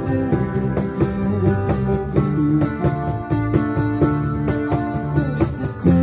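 Live band playing an instrumental passage on electric guitar, acoustic guitar and bass guitar, with a steady beat under it.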